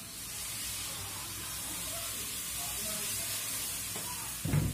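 Water poured from a plastic jug into a hot pan of spiced greens and potatoes, hissing and sizzling steadily as it hits the pan: the water is added so the potatoes can boil. A short dull knock near the end.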